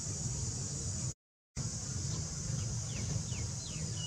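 Steady high-pitched buzzing of insects over a low rumble, with a few short falling bird chirps near the end. The sound drops out completely for a moment about a second in.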